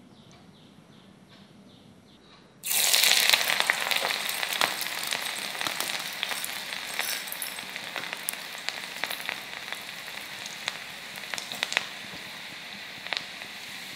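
Cumin seeds and black pepper sizzling in hot fat in a small tempering pan. The sizzle starts suddenly and loudly about three seconds in as the spices hit the fat, then slowly eases, with many small crackling pops throughout.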